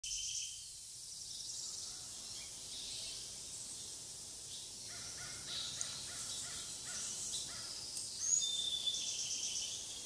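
Garden birdsong: several birds singing and calling over a steady outdoor hush. A run of repeated lower calls comes about halfway through, and a couple of clear whistled notes come near the end.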